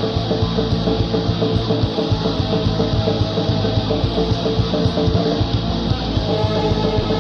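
Black metal music: distorted electric guitars over fast, dense drumming, steady and unbroken.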